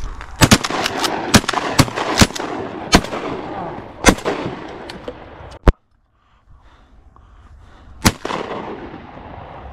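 A volley of shotgun fire from several guns: loud close shots mixed with fainter ones, about a dozen in quick, uneven succession over the first four seconds, then single shots near the middle and one more about eight seconds in.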